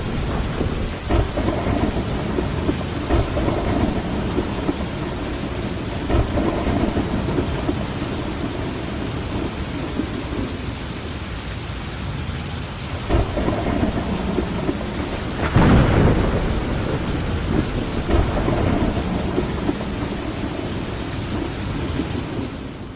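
Steady rain on window glass with rolling thunder rumbling underneath, swelling and easing several times. A louder, sharper thunderclap comes about two thirds of the way through.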